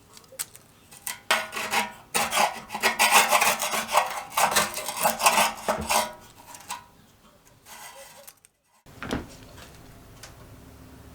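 Rusted sheet steel of a military jerry can being scraped or rasped by hand in irregular strokes. The scraping fades after about six seconds, and a single knock comes near the end.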